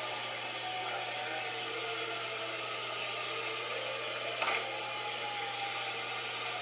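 Dual-tone outdoor tornado warning siren wailing steadily, its tones slowly sliding up and down. A sharp click about four and a half seconds in.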